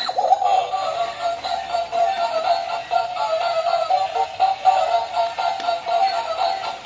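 Electronic music with a fast-warbling tone.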